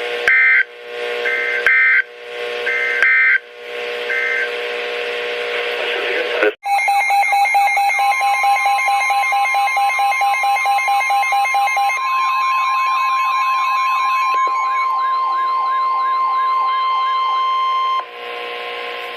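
Emergency Alert System signalling between two broadcast severe weather warnings. First come a few short digital data chirps over a steady hum. After a brief break, a loud electronic alert starts, with warbling tones layered over a steady high tone that holds for about ten seconds and then stops near the end.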